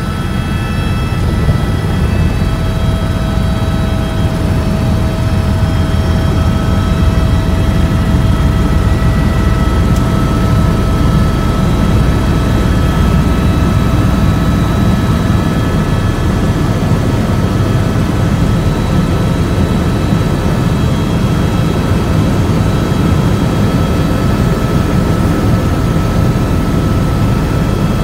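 Steady drone of a sightseeing aircraft's engine heard from inside the cabin, a loud low rumble with faint steady whining tones above it.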